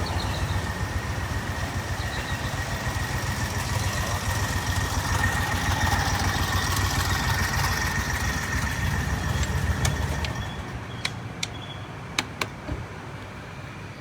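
UTV engine running steadily with a steady whine over it. It drops quieter about ten seconds in, and a few sharp clicks follow.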